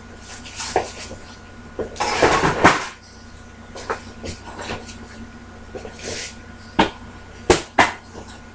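Hands handling objects on a workbench: scattered clicks, a scraping, rustling burst about two seconds in, and three sharp knocks near the end, over a steady low hum.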